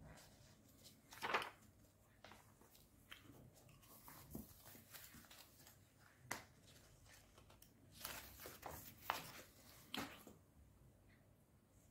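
Pages of a paper LEGO instruction booklet being turned and handled, with soft rustles and flaps. There is a sharper flap about a second in and a run of rustles near the end.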